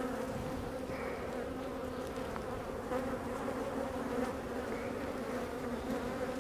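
Dense, steady hum of a large honey bee colony swarming around an opened hive. The bees are stirred up and giving off alarm pheromone.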